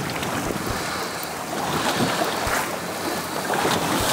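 Wind buffeting the microphone over the wash of sea water around the boat, with scattered low thumps from the gusts.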